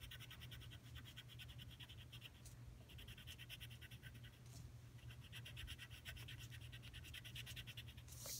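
Faint scratching of a pencil on paper as a small area is coloured in with quick back-and-forth strokes, in several runs with short pauses between them.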